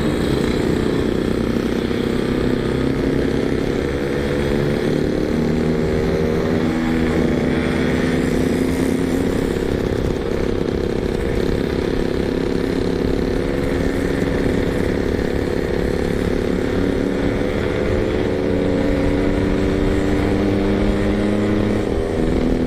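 Yamaha RX-King two-stroke single-cylinder motorcycle engine running at low, fairly steady revs while ridden slowly, its pitch drifting gently up and down.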